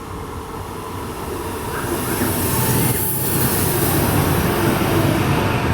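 A train approaching and running past close by: rail and wheel noise that grows steadily louder over the first couple of seconds, then holds as a steady rumble with a bright hiss.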